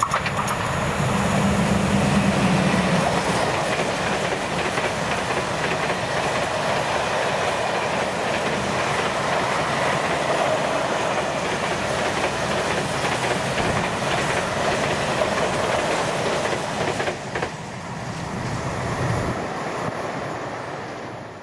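Long freight train of empty flat wagons behind an SŽ class 541 electric locomotive rolling past: a steady rumble of wheels on the rails with repeated clicks from the rail joints. The sound cuts off abruptly at the very end.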